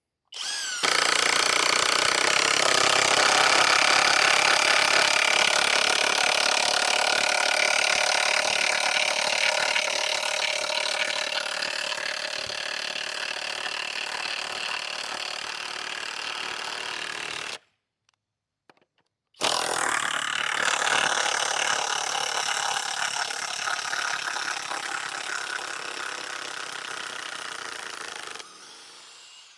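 Flex high-torque cordless impact wrench hammering a 5/8 by 10-inch lag screw into wood for about seventeen seconds. After a short break, a second run of power-tool driving lasts about nine seconds and trails off near the end.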